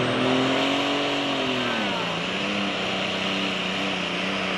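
Turbocharged diesel engine of a John Deere super stock pulling tractor running hard at high revs. About two seconds in, its pitch drops and then holds steady, as the engine takes the load of the sled at the start of the pull.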